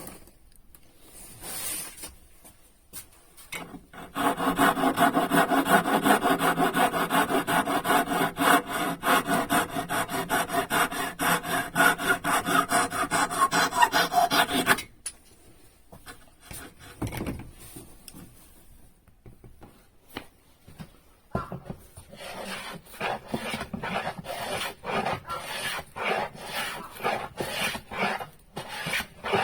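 A hand tool scraping across wood in quick back-and-forth strokes, as in hand-sanding or filing a wooden part. The strokes are loud for about ten seconds, stop, and after a pause start again more quietly.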